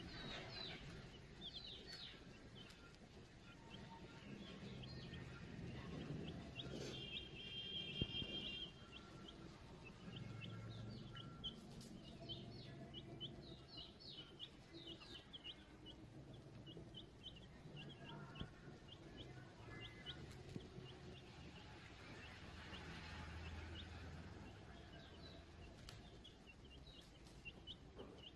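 Several young chicks peeping: faint, many short, high, downward-sliding peeps in quick runs throughout.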